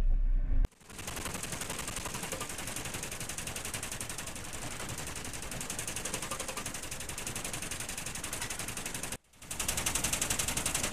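A low rumble cuts off abruptly under a second in. Then the ship's general alarm sounds as a rapid, rattling run of pulses, stops for a moment near the end, and starts again. It is calling all hands to general emergency for a reported fire.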